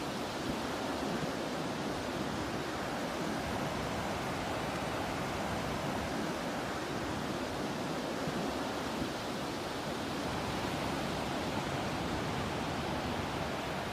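Steady rushing of ocean surf and sea breeze, an even wash of noise with no separate wave crashes standing out.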